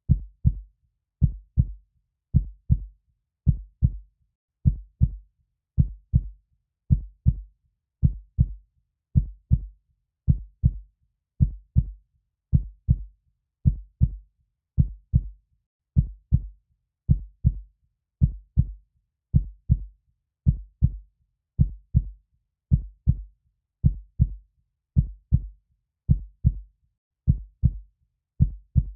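Heartbeat: slow, steady lub-dub double thumps, low-pitched, repeating a little under once a second.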